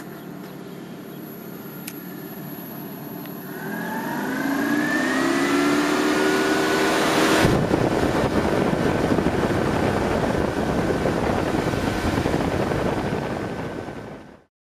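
A 12-volt car radiator fan inside a DC-powered swamp cooler starts up, its whine rising in pitch as it spins up. About seven seconds in, this gives way to a loud, steady rush of blown air.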